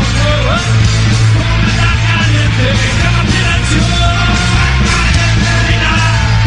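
Punk rock band playing loud and fast with electric guitars and a shouted lead vocal.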